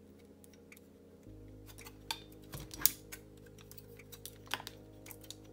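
Clicks and light rattles from a cassette deck's tape transport mechanism as it is handled and turned over by hand; the sharpest click comes about three seconds in. Soft background music with held chords runs underneath.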